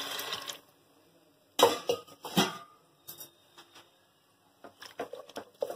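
Water pouring into an aluminium pressure cooker stops about half a second in. Then come two loud knocks and lighter clinks of kitchenware against the pot.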